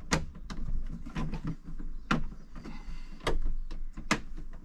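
Sharp plastic clicks and knocks, about nine spread unevenly, as the bug screen of a Camec 4 Seasons caravan roof hatch is fitted back into place.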